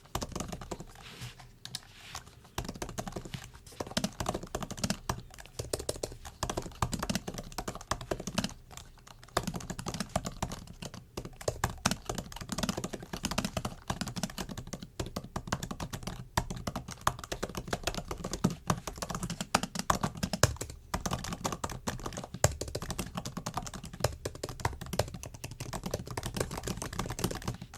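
Typing on a MacBook's built-in keyboard: a fast, continuous run of light key clicks with brief pauses between bursts.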